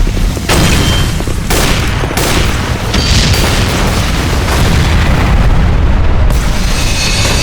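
Loud booming explosion sound effects over a continuous deep rumble, with fresh blasts starting about half a second in and again around 1.5 and 2 seconds.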